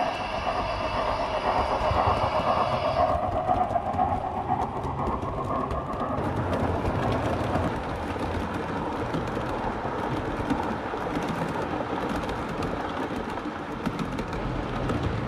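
7mm-scale (O gauge) model trains running on the track: a steady whine for the first three seconds, which stops abruptly, then a steady rumble of wheels with rapid clicking over rail joints and pointwork.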